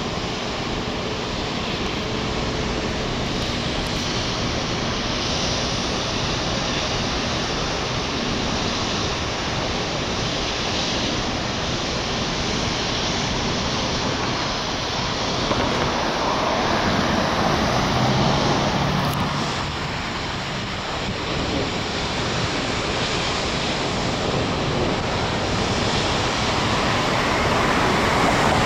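Steady rushing noise of wind on the microphone mixed with road traffic. A vehicle's engine swells and passes about halfway through, and another car approaches near the end.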